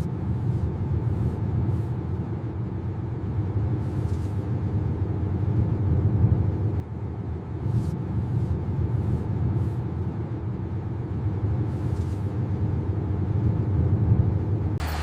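Car driving along, a steady low engine and road rumble with a few faint ticks.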